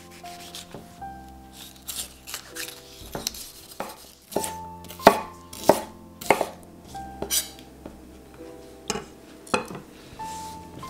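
A chef's knife slicing red bell peppers on a wooden cutting board: sharp knocks of the blade striking the board at irregular intervals, thickest in the middle and again near the end. Soft background music with held notes plays underneath.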